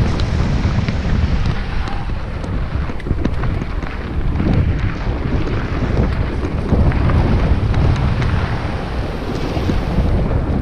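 Wind buffeting a moving action camera's microphone on a fast mountain-bike descent, over the steady rumble of tyres rolling on a dirt trail, with small scattered clicks and rattles from the bike.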